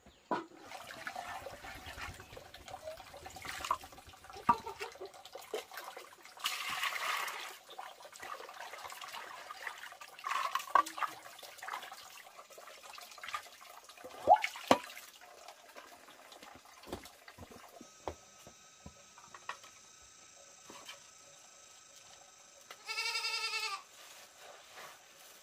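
Scattered clicks and knocks with a short rushing noise early on, then near the end one drawn-out animal call lasting about a second.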